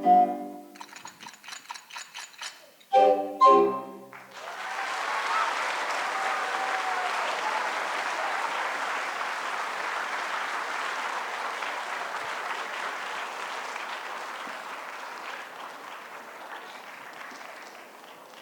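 A musical performance ends on a loud final chord, then an audience applauds, the applause slowly dying away.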